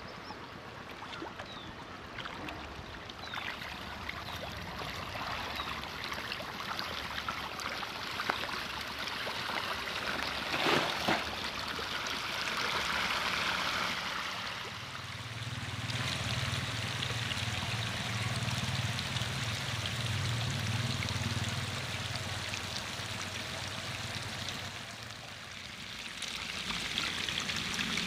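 Steady splashing and churning of pond water. A low hum joins for several seconds past the middle, and there is one sharp knock a little before it.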